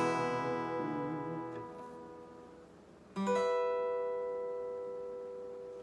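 Acoustic guitar: a strummed chord rings and fades, then a second chord is struck about three seconds in and left to ring out slowly.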